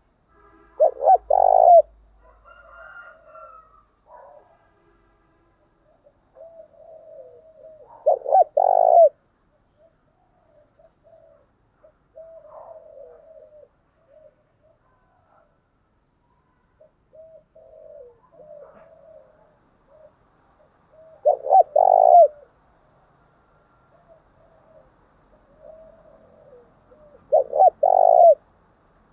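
Spotted dove cooing. Four loud coo phrases of about a second each are spaced several seconds apart, with softer, quieter coos in between. It is a decoy call used to lure other doves in.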